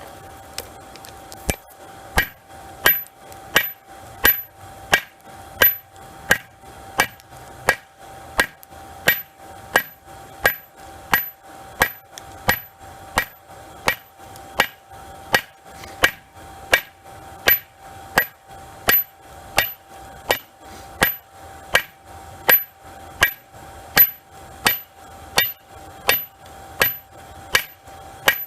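Forging hammer striking a hot railroad spike on an anvil in a steady rhythm, about three blows every two seconds, each with a short metallic ring. The blows start about a second and a half in. A steady hum runs underneath.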